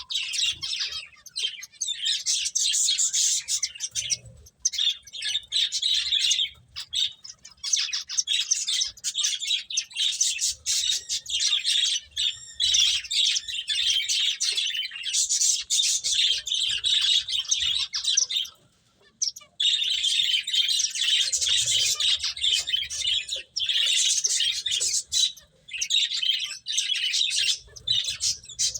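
Pet finches chirping almost without a break, many short high calls overlapping, with one brief pause about two-thirds of the way through.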